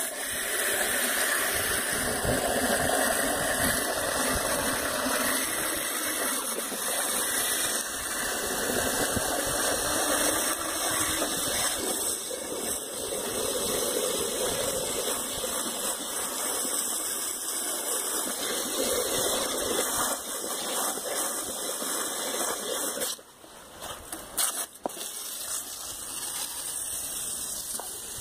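Water jetting from a garden hose spray nozzle onto a diesel intake manifold and the paving around it, rinsing out its oily soot deposits; the spray cuts off about 23 seconds in, followed by a few knocks and a fainter hiss.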